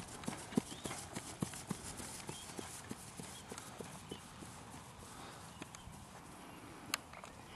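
A Peruvian horse's hoofbeats under a rider in an even rhythm, about three to four a second, growing fainter after about three seconds. There is one sharp click near the end.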